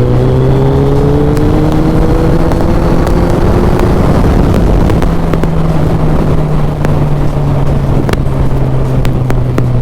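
Suzuki Hayabusa's inline-four engine pulling under acceleration, its pitch rising over the first few seconds, then running steadily at cruising speed.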